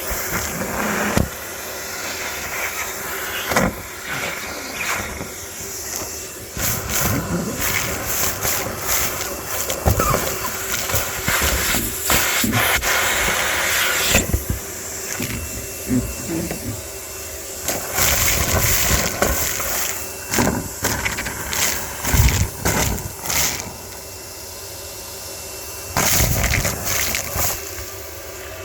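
Car wash vacuum cleaner running with a steady motor whine and rushing suction, with frequent clattering knocks coming and going.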